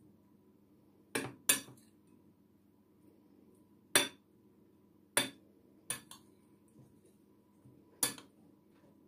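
Metal spoon clinking against a glass bowl while stirring grated brynza cheese and green onion, about six sharp clinks at irregular intervals, two close together near the start.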